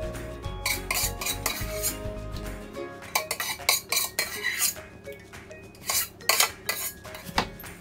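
Metal spoon clinking and scraping against a stainless steel pot and its lid, a run of sharp taps and knocks as thick blended bean paste is scraped off the spoon.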